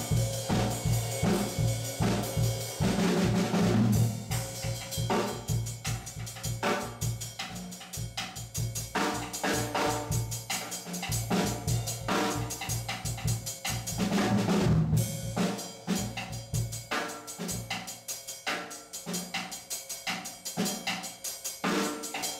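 Ludwig drum kit played solo with sticks: a steady kick-drum pulse under snare, tom and cymbal strokes, with two louder fills about three seconds in and again around fourteen seconds. The kick drum thins out in the last few seconds.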